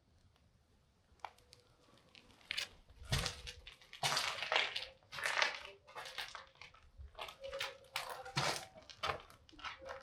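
Footsteps crunching on debris and rubble: quiet at first, then a run of irregular, uneven crunches from about two and a half seconds in.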